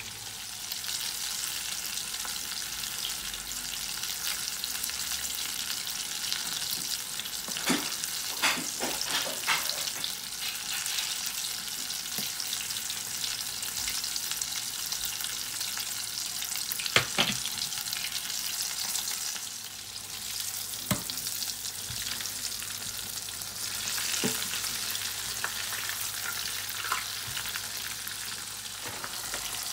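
Breaded chicken pieces deep-frying in hot oil in a stainless steel pot: a steady bubbling sizzle with crackle, broken by a few sharp clicks, a cluster about a third of the way in and a few more past halfway.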